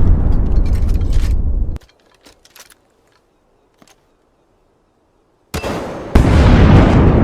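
Loud rumbling noise that cuts off suddenly about two seconds in, then near silence with a few faint clicks, then the rumbling returns about five and a half seconds in and jumps louder a moment later.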